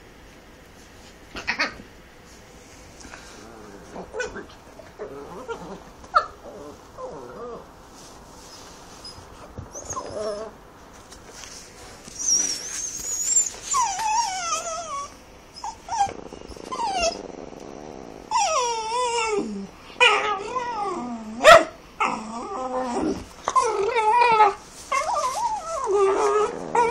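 A dog 'talking': wavering, whining vocalizations that slide up and down in pitch, faint and sparse at first and coming thick and loud from about halfway in, mixed with short whimpers. A single sharp knock about 21 seconds in.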